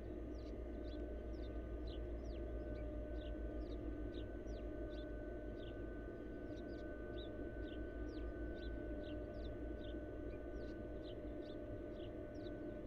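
A bird calling a thin, high, falling note about twice a second, over a steady low hum.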